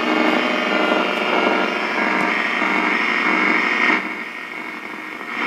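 Hallicrafters S38B receiver's speaker giving out static hiss mixed with a steady hum, with no station coming in. About four seconds in the noise drops to a lower level.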